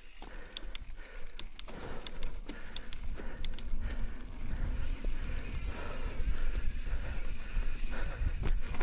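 Mountain bike riding along a dirt singletrack: tyres rumbling over the dirt with frequent sharp clicks and rattles from the bike, getting louder about two seconds in.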